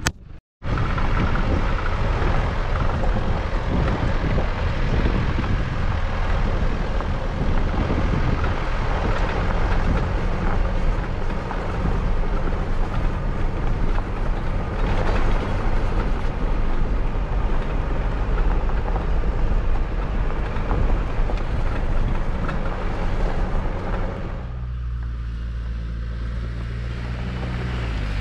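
Jeep Wrangler driving up a gravel mountain track: a steady engine note under crackly tyre-on-gravel and wind noise. About 24 seconds in this gives way to a smoother, steadier engine hum, which rises in pitch near the end.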